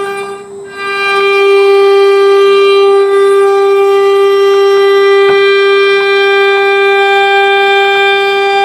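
CNC router spindle running with a steady high whine rich in overtones while a V-bit engraves wood. The whine dips briefly about half a second in, then holds steady.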